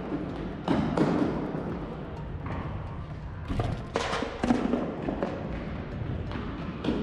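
Thuds and running footsteps echoing around a large sports hall with a wooden floor, several sharp knocks standing out.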